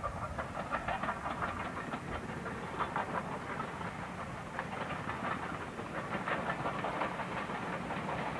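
Steam locomotive hauling its train past: a quick run of sharp exhaust beats over the low rumble of wheels on the rails.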